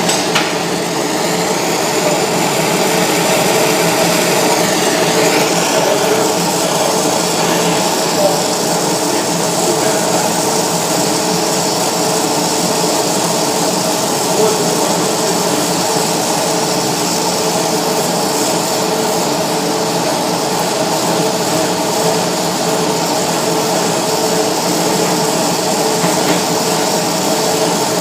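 Gas welding torch burning steadily, a continuous hiss with a steady low hum.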